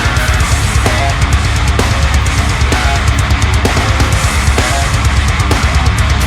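Loud heavy rock background music with distorted electric guitar and a driving drum beat.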